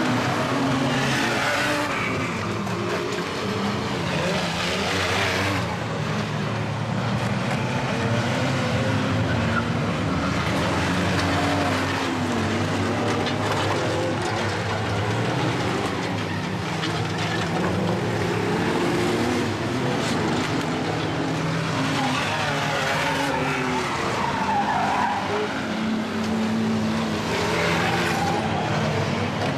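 Several banger-racing van engines revving up and down at once as the vans race around an oval track, with bursts of tyres skidding on the loose surface.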